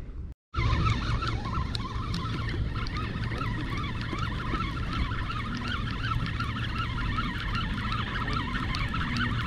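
Many birds chirping and whistling together over a steady low rumble, starting abruptly after a brief silence about half a second in.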